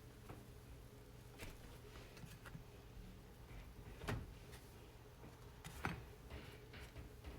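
Kitchen handling sounds: a few light clicks and two soft knocks, about four and six seconds in, over a low steady hum.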